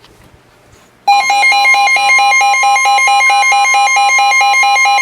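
Faint radio hiss, then about a second in the NOAA Weather Radio 1050 Hz warning alarm tone comes on loud and steady, with a weather radio receiver's alert pulsing rapidly over it. The tone is the signal that a warning message follows.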